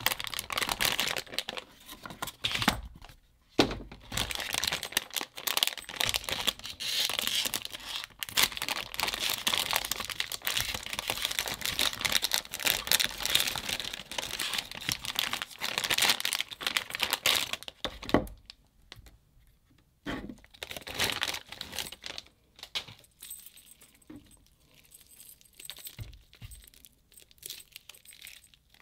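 Shiny plastic packaging bag crinkling and tearing as it is opened and a coiled keyboard cable is pulled out of it. About 18 seconds in it goes quieter, leaving scattered small clicks and rustles as the cable is handled.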